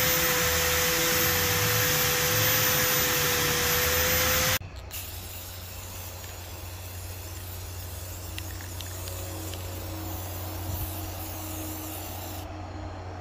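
A rotary wire brush driven by a power drill spins against charred spruce, a loud steady whir with a steady whine, scrubbing the burnt wood to bring out the grain. It cuts off sharply a little over four seconds in. Then an aerosol can of clear coat hisses in steady sprays, which stop shortly before the end.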